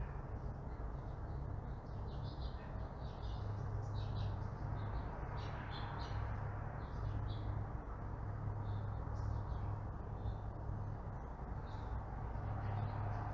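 Birds chirping, with many short calls clustered in the first half, over a steady low hum of distant traffic.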